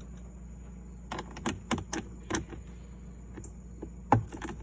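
Scattered light clicks and taps of a hand screwdriver with a 7 mm socket bit working a screw out of the plastic dash frame behind a glove box, with one louder knock about four seconds in.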